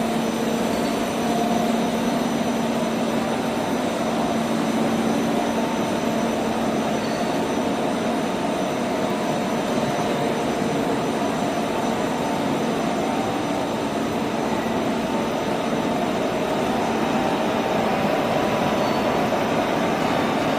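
Heavy rock-drilling machinery running steadily: a constant loud mechanical drone with a low hum, unchanging throughout.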